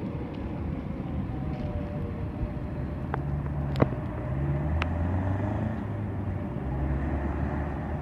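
Car engines running and pulling away over a railroad crossing. Their low rumble grows from about three seconds in, with a few sharp clicks between about three and five seconds in.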